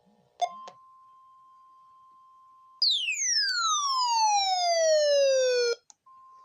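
Electronic tones: a click, then a faint steady tone. About three seconds in, a loud tone with overtones comes in and slides steeply down in pitch for about three seconds, then cuts off abruptly. The faint steady tone returns near the end.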